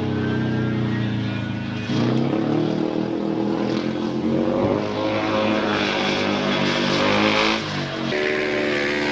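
Single-cylinder 500 cc methanol-fuelled Jawa speedway motorcycle engine running hard as the bike laps the dirt oval, its pitch rising and falling with the throttle. The sound changes abruptly about two seconds in and again near the end.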